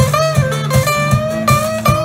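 Live blues band playing an instrumental passage: guitars and drums at a fast, steady beat under a repeated high riff with a bent note.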